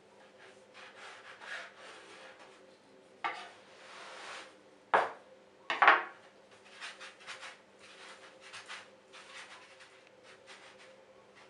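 Knife cutting a ball of dough into strips on a wooden pastry board, then hands rolling the dough strips back and forth on the floured board with soft rubbing swishes. Two sharp knocks of the knife on the wood, about five and six seconds in, are the loudest sounds.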